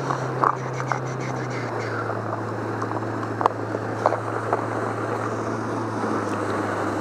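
A boat's motor running at low speed, its pitch stepping down twice as it throttles back, then settling to a steady idle. A few sharp clicks are heard over it in the first few seconds.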